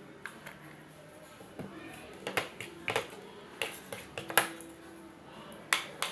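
Irregular sharp plastic clicks and taps: a plastic spoon knocking against a plastic bowl while stirring glue slime that is starting to thicken, with a plastic bottle set down on the glass tabletop. The loudest click comes about four and a half seconds in.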